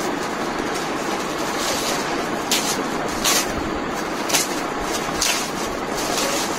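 Gift wrapping paper rustling and tearing as a present is unwrapped by hand, with a few sharp crinkles, over a steady background hiss.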